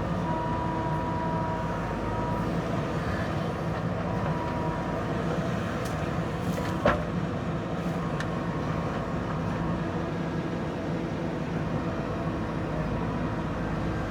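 JCB backhoe loader's diesel engine running steadily under work, with a single sharp metallic knock about seven seconds in.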